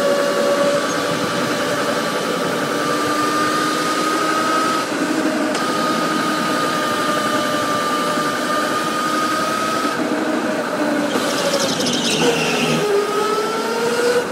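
Electric go-kart's motor whining steadily under way over a rushing noise, its pitch drifting slowly up and down with speed. Near the end the whine dips and then climbs again.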